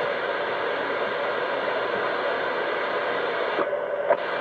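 CB radio receiver hissing steady static with no voice coming through, the received signal too weak to hear. Near the end the hiss briefly changes and there is a small click.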